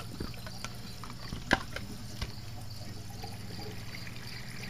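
Water trickling and draining through a PVC bell siphon in a gravel grow bed as the siphon pulls the flood level down, with a steady low hum underneath. A sharp click about a second and a half in and a smaller one shortly after.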